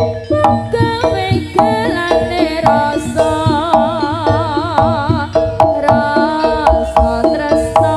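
East Javanese jaranan music: kendang hand drums playing a quick, steady rhythm under a wavering, ornamented melody, with held ringing tones in the middle range.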